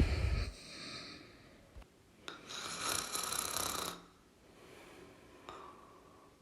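A person snoring. A snore with a deep low rumble ends in the first half second, then a long airy breath runs from about two and a half to four seconds in, followed by quieter breathing.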